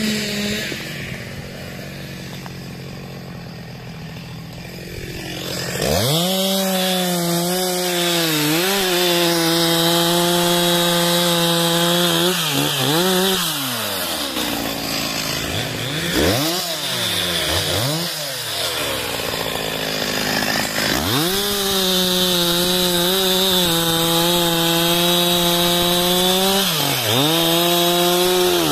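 Stihl two-stroke chainsaw idling, then run at full throttle through a felled log in two long cuts, about six and about twenty-one seconds in. Between the cuts the engine revs drop and pick up again.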